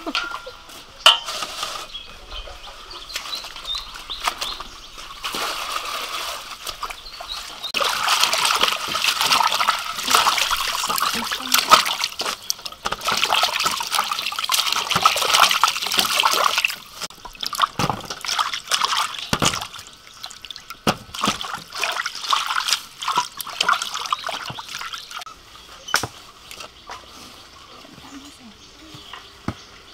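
Water splashing and sloshing in a steel basin as hands swish and rinse leafy greens, heaviest in the middle stretch, with scattered light clicks and knocks later on.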